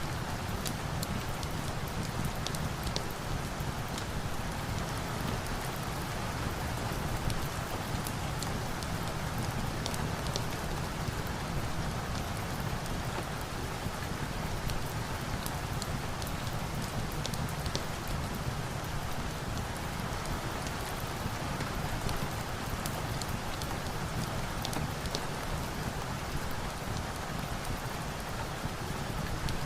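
Steady rain falling, a constant rushing hiss with a deep undertone, dotted with scattered small sharp crackles from a wood fire.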